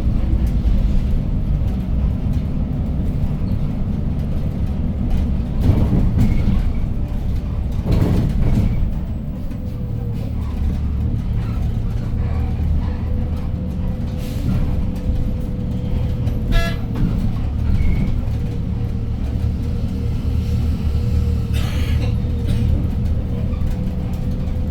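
City bus in motion, heard from inside the cabin: the 2015 Hyundai New Super Aerocity's C6AF CNG engine runs steadily under road load, with rumble and a few loud thumps of cabin rattles. A thin, steady whine comes in about ten seconds in.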